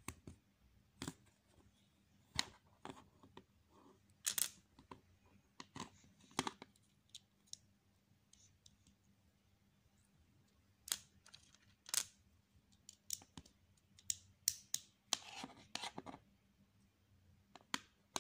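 Plastic Lego bricks being handled and pressed together by hand: irregular sharp clicks and snaps, with a brief shuffling rattle about fifteen seconds in.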